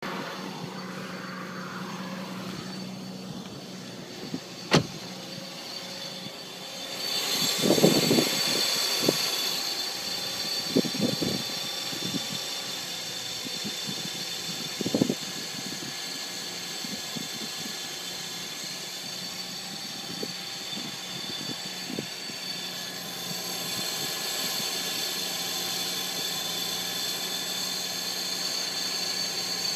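2006 Infiniti G35's V6 engine on a cold start, with a metal-on-metal grinding noise. A sharp click comes about five seconds in. The sound then grows louder, with irregular bursts of grinding for several seconds, before settling into a steady run.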